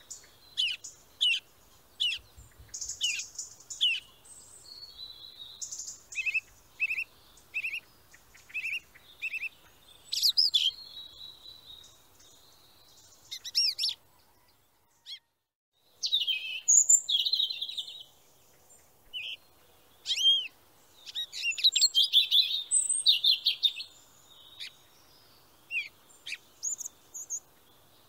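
Small songbirds chirping and whistling: quick series of short, high calls, broken by a brief silence about halfway through.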